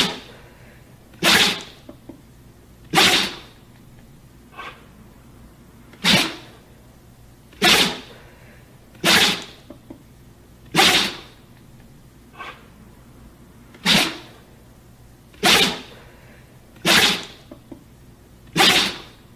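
A dog sneezing over and over: about a dozen sharp sneezes, roughly one every second and a half, with a couple of fainter ones in between.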